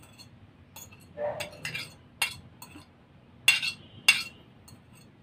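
Metal fork scraping and clinking against a plate while sardine sauce is scraped off it: a scatter of sharp clinks, the two loudest about three and a half and four seconds in, each with a short ring.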